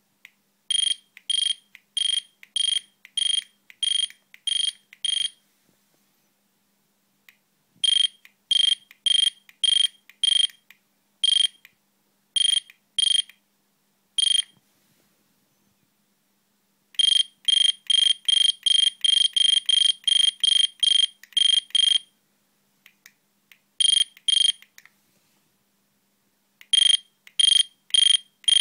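Datalogic PD9530-DPM handheld barcode scanner giving short, high good-read beeps as it decodes codes on the labels. The beeps come in several runs with pauses between them, roughly two a second and quicker, about three a second, in the longest run.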